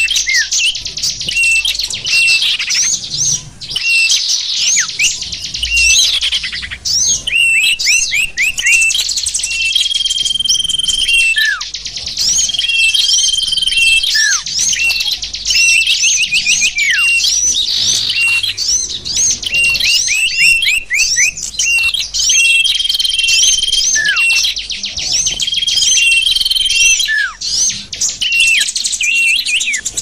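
A recorded mix of many small songbirds chirping nonstop, made as a bird-luring (pikat) track: quick high chirps overlap throughout, with several long held whistles and a recurring falling, slurred note.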